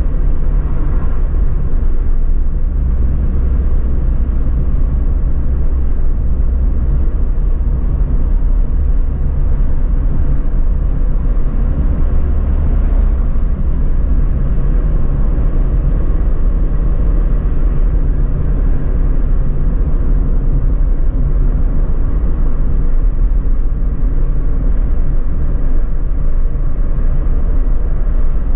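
Steady low rumble of tyre, road and engine noise heard inside a Suzuki Alto's cabin as it cruises along a highway.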